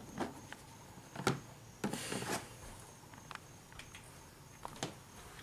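A few scattered light knocks and clicks, the loudest about a second in, with a brief rustle around two seconds in, from someone moving around and handling things among cluttered storage bins and boxes.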